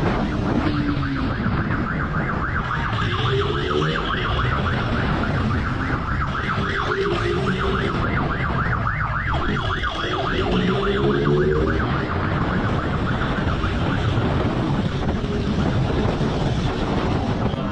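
Police motorcycle siren with a fast pulsing yelp, over the steady rumble of the pursuing motorcycle's engine and wind. A few times a lower tone rises and falls.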